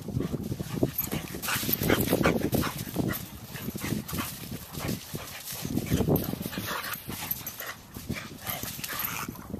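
A boxer and a cattle-dog mix playing rough together: irregular bursts of dog vocalizing mixed with paws scuffling and running in sand.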